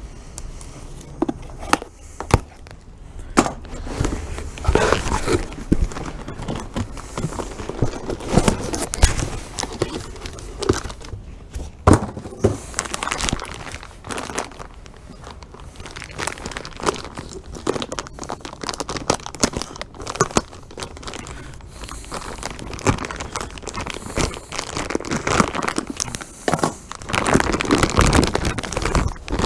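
Plastic wrap crinkling and tearing as it is peeled off a new brake rotor, along with handling of its cardboard box: irregular rustles and sharp crackles, busier near the end.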